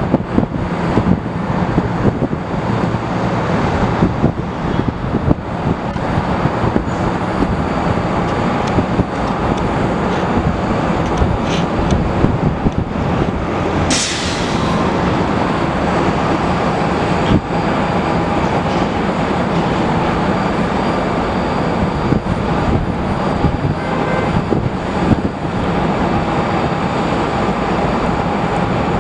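Steady rumble of jet airliner engines with wind buffeting the microphone in gusts. A single sharp click about halfway through.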